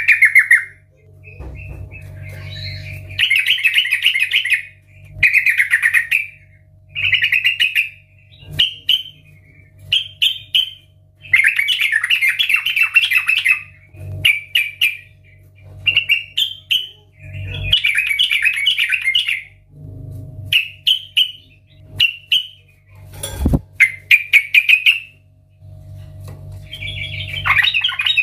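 Yellow-vented bulbul singing loudly: a long run of short, bubbly chattering phrases, each about a second long, repeated with brief pauses in between.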